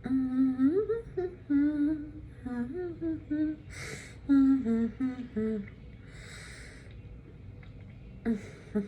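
A woman humming with her mouth closed: a string of short notes rising and falling in pitch for about five seconds, with a short breathy noise a little before four seconds and another around six seconds.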